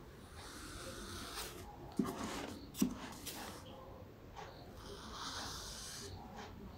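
Black marker tip rubbing across paper in short drawing strokes. Two brief knocks come about two and three seconds in.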